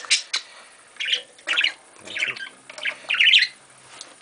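Budgerigars chattering: short scratchy chirps and squawks in about six separate bursts.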